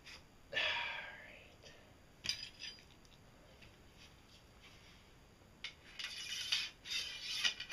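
Light metallic clinks and rattles from a steel pipe propeller shaft with a melted-on plastic gear being handled and turned in the hands. There is a brief pair of clicks about two seconds in and a cluster of clinks near the end. A short breathy rushing sound comes about half a second in.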